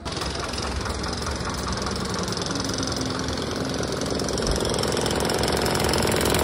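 A construction-site engine-driven machine running loudly with a fast, even knocking rhythm. It cuts in suddenly and grows a little louder towards the end.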